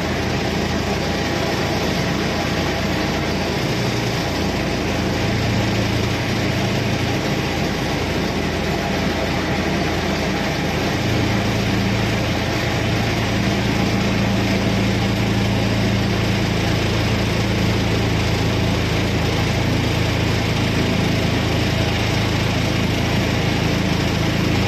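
A riverboat's engine running steadily under way, a constant low drone over a wash of noise that grows a little fuller about halfway through.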